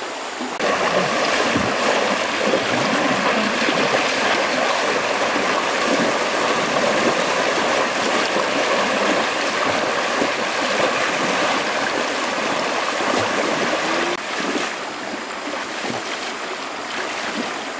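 A stream rushing over shallow rapids, a steady loud rush of water that begins suddenly about half a second in and falls back to a softer, calmer flow about fourteen seconds in.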